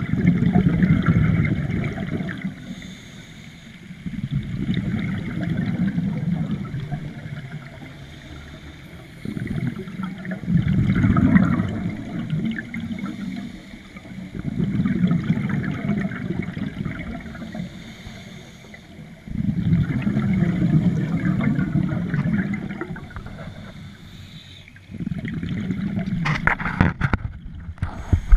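Scuba regulator exhaust bubbles rumbling underwater, in bursts of about three seconds every five seconds or so as the diver breathes out, with quieter gaps between breaths. A few sharp knocks near the end.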